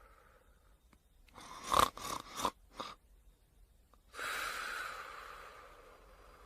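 Fafa snoring in sleep: a quick run of four or five short, sharp catches of breath about a second and a half in, then a long, noisy breath from about four seconds in that slowly fades.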